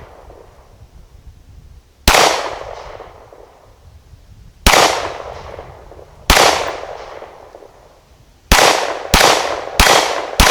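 Glock 17 Gen 4 9mm pistol firing: three spaced shots, then a quicker string of about four near the end, each shot trailing off in an echo.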